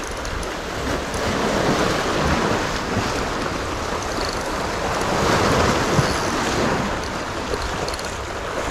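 Sea waves washing against shoreline rocks, swelling and easing, with wind buffeting the microphone.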